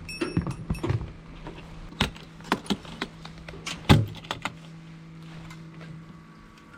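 Clicks, rattles and knocks of gear being handled, with a loud thunk about four seconds in, over a faint steady hum that dies away near the end.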